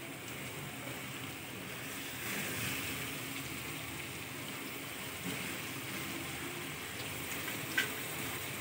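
Sliced onions sizzling in hot oil in a kadai, a steady hiss, with one short sharp click near the end.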